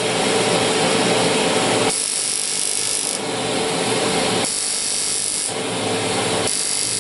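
Smoke evacuator's vacuum motor running steadily, its suction hose drawing air at the skin beside a fractional laser handpiece. Three times the hiss turns sharper and brighter for about a second.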